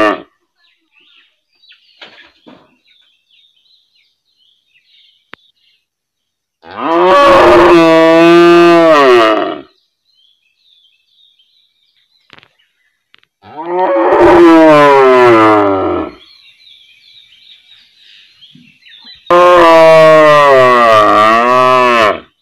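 A cow mooing: three long moos, each two to three seconds long and a few seconds apart, the second falling in pitch at its end. Faint bird chirps sound in the gaps.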